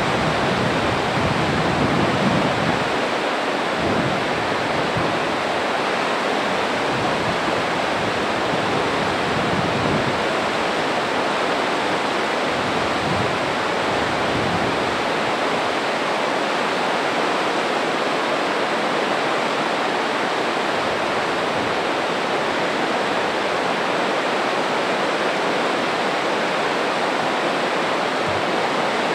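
Spokane Falls: the Spokane River pouring over the falls in heavy flow, a steady rush of falling and churning water.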